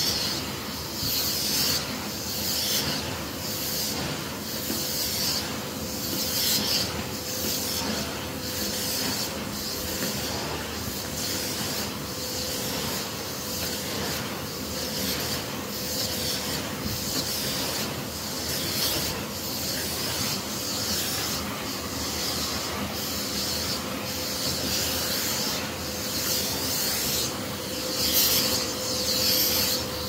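Victor V9 600 W commercial bagged vacuum cleaner running steadily with a constant whine, its floor head swishing back and forth over carpet about once a second.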